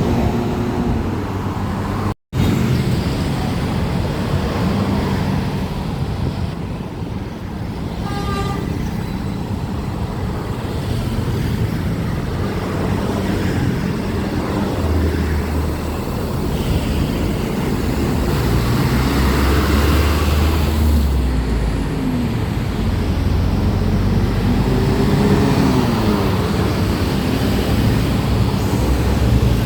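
Indonesian tour buses running in traffic, with Basuri 'telolet' multi-tone air horns playing stepped and gliding tunes over the engine rumble.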